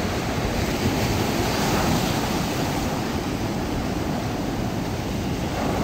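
Ocean surf breaking and washing up a sandy beach, a steady rush of waves.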